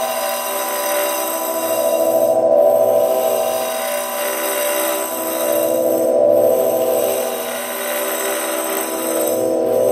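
Electronic drone played through prepared speakers salvaged from old CRT televisions: a dense cluster of steady held tones over a fast pulsing buzz, swelling and fading every three or four seconds. A frame drum laid on a speaker, with loose metal washers on its skin, buzzes along with it.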